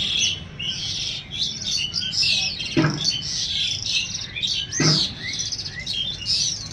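Many small birds chirping and twittering continuously in high-pitched calls. Two short, louder sounds cut in about three and five seconds in.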